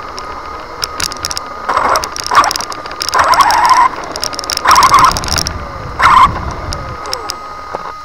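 Electric RC car's 3650-size 3300kv brushless motor whining in about five short bursts as the throttle is punched, heard from a camera riding on the car. Scattered clicking rattle comes from the loose buttons of the camera clipped to the frame, with tyre rumble on the road in the middle.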